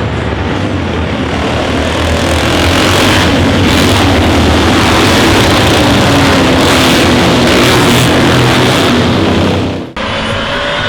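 A racing car's engine running hard, swelling over the first couple of seconds and then holding loud at high revs. It cuts off abruptly near the end, and another car's engine follows.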